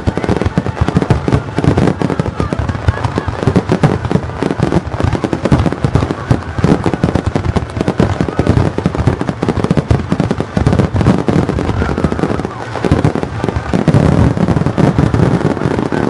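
Fireworks finale: aerial shells bursting overhead in a dense, continuous barrage of rapid bangs and crackles, with no pause between bursts.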